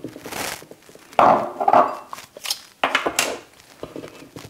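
Peeled garlic cloves and a glass bowl knocking and clattering on a wooden cutting board as the cloves are tipped out and the bowl is put aside, a few separate knocks in all; near the end a kitchen knife starts cutting into a clove on the board.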